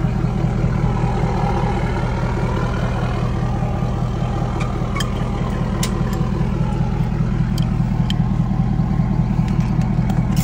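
An engine idling steadily, with a few light clicks.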